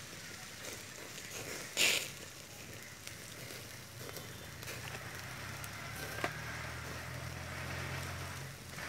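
Open wood-and-charcoal fire crackling under chicken pieces on a wire grill rack, with a loud pop about two seconds in and a smaller one later. A low hum joins in the second half.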